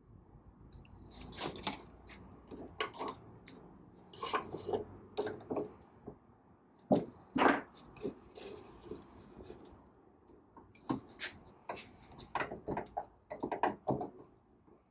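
Irregular knocks, taps and clicks of tools and parts being handled against wood, with faint rustling between them; a pair of sharper knocks about halfway through is the loudest.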